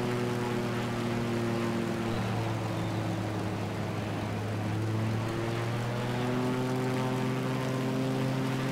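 Pitts Special biplane's piston engine and propeller running steadily in flight. The engine note dips a little about two seconds in and climbs back about halfway through.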